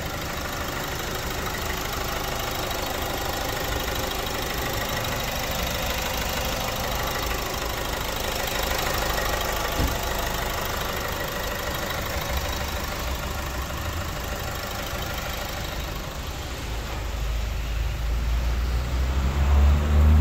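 Opel Insignia 1.6 CDTi diesel engine idling steadily, just after a new timing chain and oil pump were fitted to cure a tapping noise. A deeper low rumble builds over the last few seconds.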